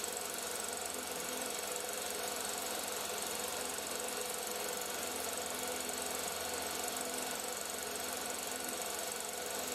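16mm film projector running: a steady mechanical whir and hiss with constant hums, unchanging throughout.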